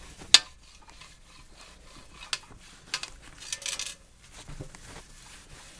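Small hard objects being handled and rubbed against a surface. There is a sharp click about a third of a second in and a few softer clicks and rustling after it.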